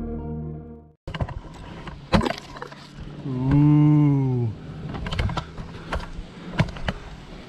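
Background music fades out within the first second. Scattered clicks and knocks follow, with one pitched hum of about a second in the middle that rises slightly and then falls away.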